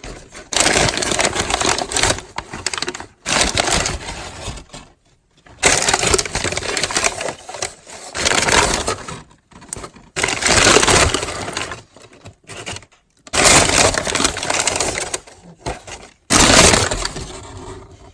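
Packaging crinkling and rustling in repeated loud bursts of a second or two with short pauses, as items are pulled out of a shipping box and unwrapped.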